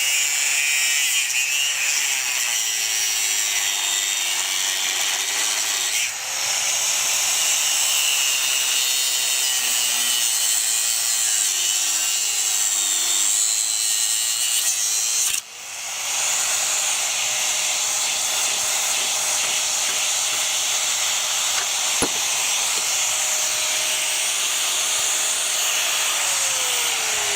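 Angle grinder with an abrasive disc cutting a notch in 5/16-inch steel angle: a steady, high-pitched grinding over the motor's tone, easing off briefly twice. Near the end the motor winds down.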